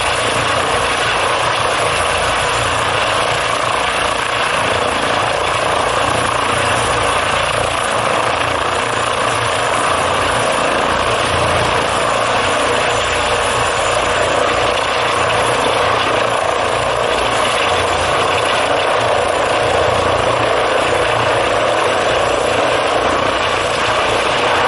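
Eurocopter EC155 (Airbus H155) helicopter in a low hover, its twin turboshaft engines, main rotor and Fenestron ducted tail rotor making a loud, steady whine and rush that holds the same pitch throughout.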